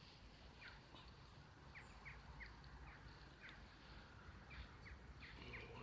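Near silence with faint, short bird chirps repeating irregularly, roughly one or two a second, over a low steady background rumble.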